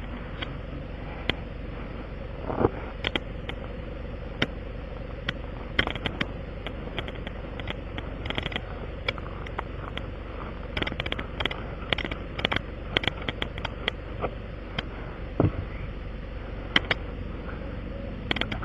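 Hand tools clicking, tapping and scraping irregularly against a punctured car tire during a tire plug repair, over a steady engine idle hum.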